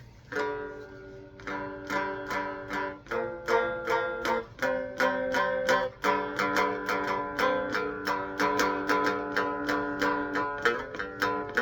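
Homemade three-string cigar box guitar played acoustically with a pick, amp switched off: a steady run of plucked, ringing notes at about three to four a second.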